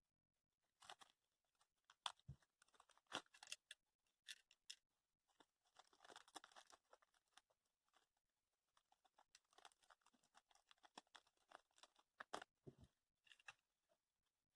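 Faint, irregular clicks, taps and crinkling rustles of small things being handled.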